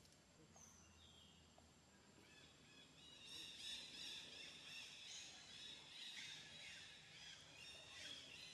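Faint forest birdsong: a couple of short high whistles at first, then from about two seconds in many overlapping chirps and trills from several birds.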